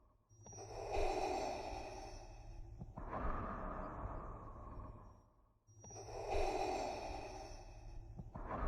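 Darth Vader's respirator breathing: slow, steady breaths in and out, each lasting a couple of seconds, with a full cycle about every five and a half seconds and a short pause before each breath in. A low hum runs underneath.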